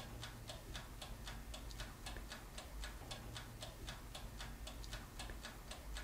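Toaster oven's wind-up dial timer ticking steadily, several even ticks a second, while the oven heats.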